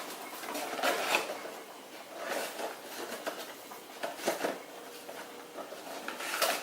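Rustling and light knocks of kitchen objects being handled, in three short bursts about a second or two apart.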